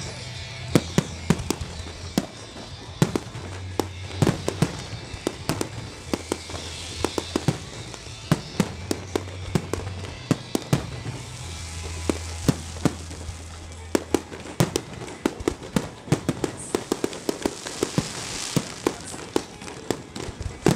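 Fireworks display: aerial shells bursting in a rapid, irregular string of sharp bangs, several a second at times, with music and its low bass notes playing underneath.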